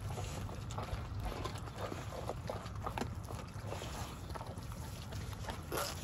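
Two American bully puppies chewing and tearing at raw whole chicken, with many short, irregular crunches and wet tearing sounds. A steady low rumble of wind on the microphone runs underneath.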